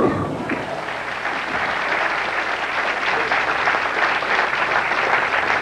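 Audience applauding a strike in bowling, a dense steady clatter of clapping; the crash of the pins dies away at the very start.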